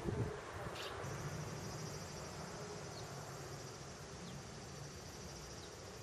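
An insect's steady, high-pitched trill starts about a second in and carries on, over a low steady rumble. A short thump comes right at the start.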